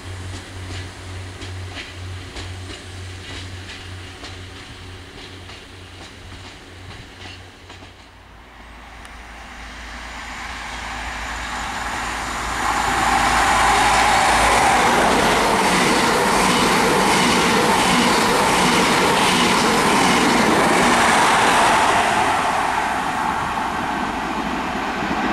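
A diesel train passing through the station: its sound grows from about nine seconds in, stays loud for about ten seconds with the wheels clattering over the rails, then starts to fade near the end. Before it arrives, a low pulsing hum dies away.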